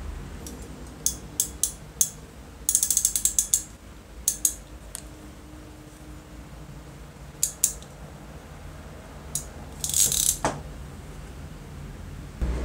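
Crimping pliers clicking and clacking as an insulated wire connector is crimped. There are single sharp clicks, a quick run of clicks about three seconds in, and a louder cluster of clicks near the end.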